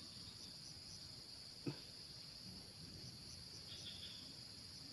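Faint, steady high-pitched chorus of insects chirring, with one short knock a little over a third of the way in.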